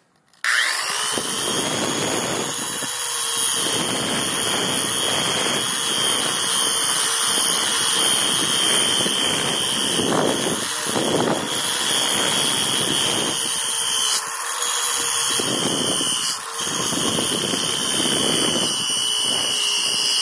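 80-grit flap sanding wheel spun by a power tool, grinding rust off a steel hatchet head. The motor starts suddenly about half a second in and runs with a steady high whine, while the rasp of the abrasive swells and fades as the wheel presses on and lifts off the steel.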